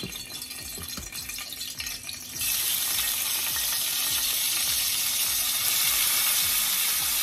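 Diced bell peppers and onion hitting hot olive oil in a skillet, setting off a sudden loud, steady sizzle about two seconds in, after a few faint clicks.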